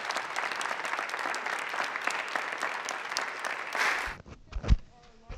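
Audience applauding, which cuts off abruptly about four seconds in, followed by a few low thumps, one of them sharp and loud.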